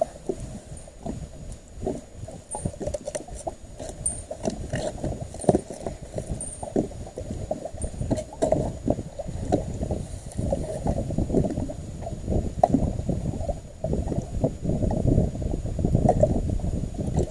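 Small waves sloshing and gurgling against the side of a fishing boat's hull: a low, uneven splashing that surges and falls back.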